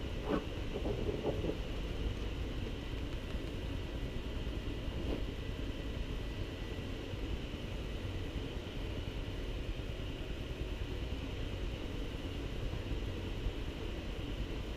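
Steady low background rumble, with a few brief faint sounds in the first second or two.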